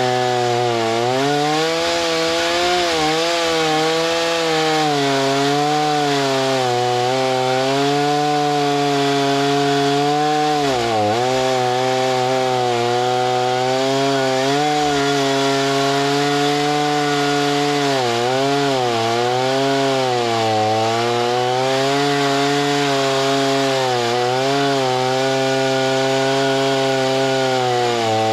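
Gas engine of a lumber saw running steadily under load through a cut. Its pitch sags briefly several times, about a second in, near eleven seconds, around eighteen to nineteen seconds and again near twenty-four seconds, as the cut bogs the engine.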